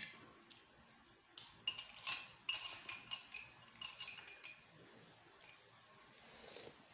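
Cooked ark shells (litog) clinking against each other and a ceramic bowl as a hand picks through them: a series of light, ringing clinks between about one and a half and four and a half seconds in.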